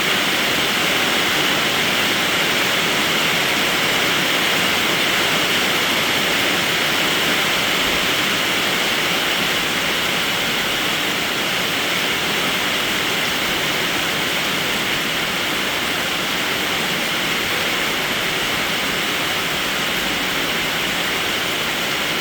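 Steady rain falling, an even rushing hiss that stays unchanged throughout.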